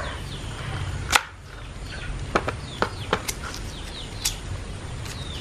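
Kitchen knife cutting through a cassava (tapioca) root on a plastic cutting board: one loud sharp knock about a second in, then several lighter clicks and taps as the blade works through the root and meets the board.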